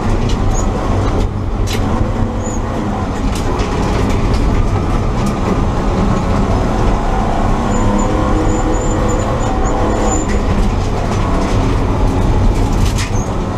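BMW E30 325i's 2.5-litre inline-six running at speed, heard from inside the caged cabin with steady road and tyre noise. A few sharp knocks come through, once early and once near the end.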